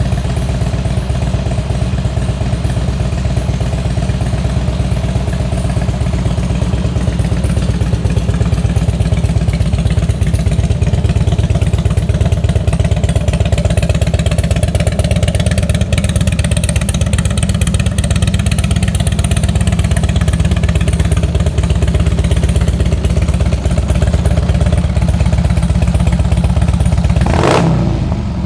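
2003 Harley-Davidson Electra Glide's fuel-injected Twin Cam 88 V-twin idling steadily, running cleanly with no odd noises. Near the end the sound changes abruptly.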